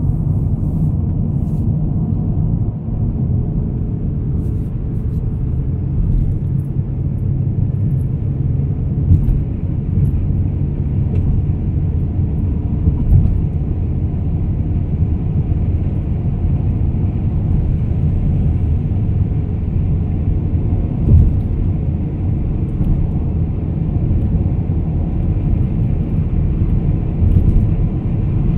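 Steady low rumble of a car's road and engine noise heard from inside the cabin while driving at speed on an expressway, with a few short bumps.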